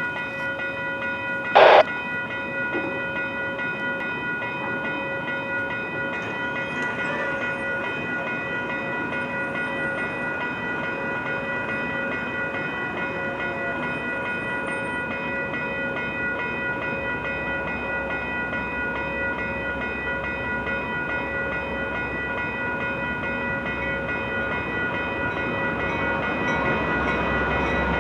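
Railway level-crossing warning bell ringing steadily while the crossing signals flash and the gate arms lower. There is one short, loud burst about two seconds in. Near the end the rumble of the approaching train builds.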